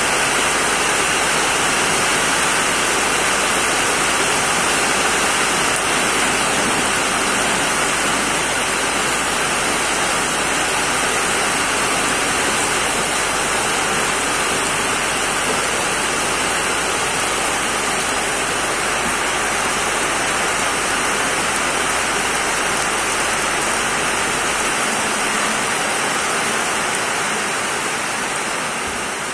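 Heavy rain pouring down steadily on paved ground and corrugated metal roofs, an even rushing hiss that grows a little quieter near the end.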